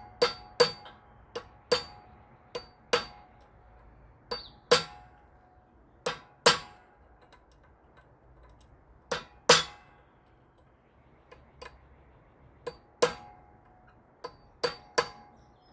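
Hammer tapping a metal part to drive it into its groove so it seats. The strikes are sharp and ringing, a couple a second, coming in runs with pauses between; the part is still not going in.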